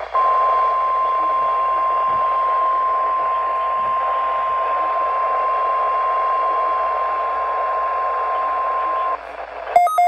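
NOAA Weather Radio 1050 Hz warning alarm tone, one steady pure tone heard through a radio receiver over static hiss, which cuts off about nine seconds in. A quick run of short beeps follows near the end.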